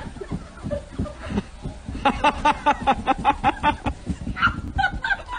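A person laughing hard in a quick run of short 'ha-ha' bursts, starting about two seconds in.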